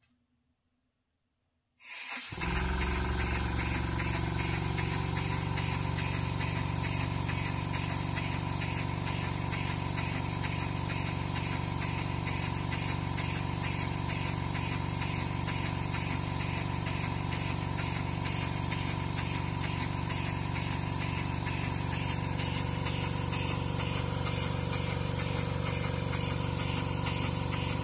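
Model horizontal steam engine with a piston valve starting up suddenly about two seconds in and then running fast and steady: a rapid, even hiss of exhaust beats over a low steady hum.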